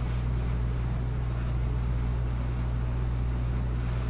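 Steady low electrical hum with an even hiss over it, unchanging, with no distinct tones or rhythm.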